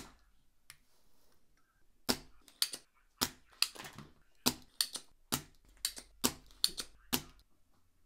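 Spring-loaded desoldering pump (solder sucker) snapping as its plunger releases to suck molten solder from the USB port's pins: one sharp click at the start, then about a dozen more over five seconds, two or three a second, each ringing briefly.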